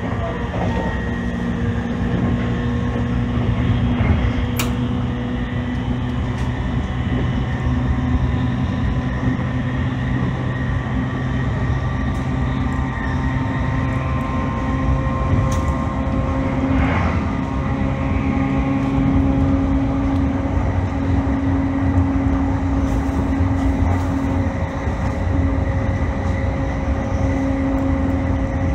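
E531 series electric multiple unit running on the Jōban Line: the steady hum of the traction motors over wheel-on-rail rumble. A few sharp clicks from the track.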